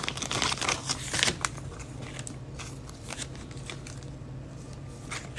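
Football trading cards and foil pack wrapper being handled: crinkling and clicking, busiest in the first second and a half, then fainter occasional clicks as cards are slid and flipped.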